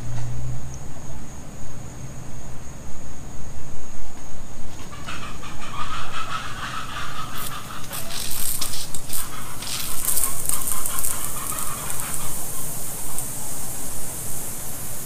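Irrigation sprinkler heads coming on as the zone fills. About five seconds in a hiss starts, and from about seven seconds it is a bright spraying hiss with rapid ticking, over a low rumble.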